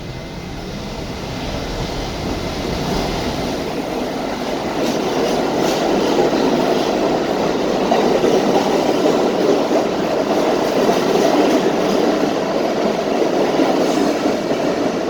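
New York City Subway R68 train running along the track. Its wheel and motor noise grows louder over the first six seconds and then holds steady, with a few clicks of wheels over rail joints about five seconds in.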